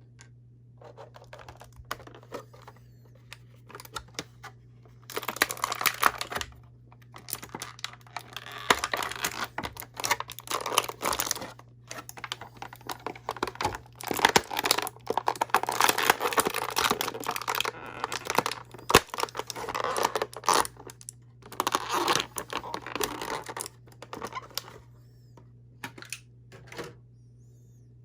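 Plastic action-figure packaging crinkling and rustling in irregular bursts with sharp clicks and crackles as the figure is worked free of its package.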